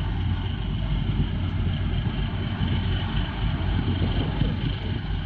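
Tugboat's diesel engines running under load with a steady low drone as it pushes against a bulk carrier's hull to help the ship turn to port.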